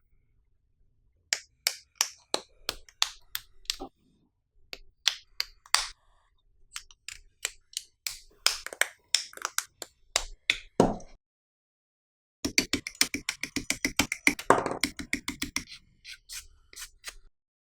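Sharp clicks and taps of hard plastic model-kit parts being handled and fitted together, in irregular runs, with a quick dense flurry of clicks about two-thirds of the way through.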